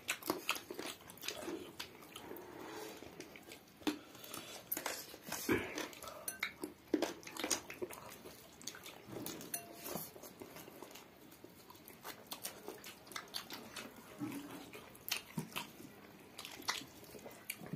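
Close-up eating sounds of chicken and rice eaten by hand: chewing and lip smacks, with fingers squishing rice against a plate, as a run of irregular wet clicks.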